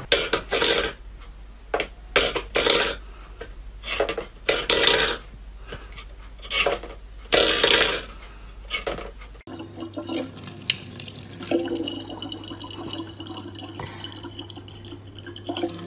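Metal bowl clattering and scraping on a wooden floor in about eight short, loud bursts. About nine and a half seconds in it gives way to a thin stream of water from a kitchen tap running steadily into a plastic water bottle.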